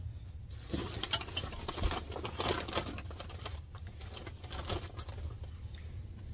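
Wrapping crinkling and rustling in irregular bursts as an item is unwrapped by hand, over a steady low hum.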